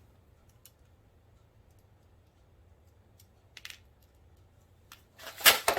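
Mostly quiet handling of hardware: a few faint clicks, then near the end a short clatter of sharp clicks and rattles as the light-hanging brackets on the grow rack are moved into line.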